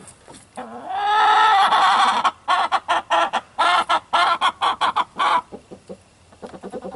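Chickens squawking and cackling: one long harsh call about a second in, then a fast run of loud clucks, about five a second, that stops about five and a half seconds in. The flock of hens is unsettled by a newly added rooster.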